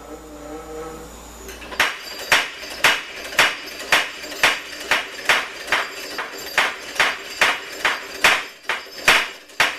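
Flywheel-driven power hammer running, its ram striking the anvil in a steady series of blows about two a second, coming a little faster as it goes. The blows start about two seconds in, after a short faint hum.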